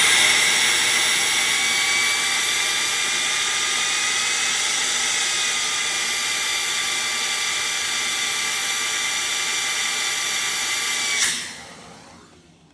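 A small high-speed motor whining steadily with several high tones, from the test rig spinning a vacuum cleaner's BLDC fan motor as a generator. About eleven seconds in it cuts off and winds down.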